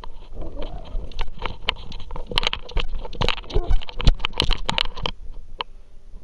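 A camera strapped to a dog's harness jostling as the dog moves, with a quick, uneven run of knocks, scrapes and thumps from the mount and the dog's footfalls. It stops about five seconds in, leaving only a few faint ticks.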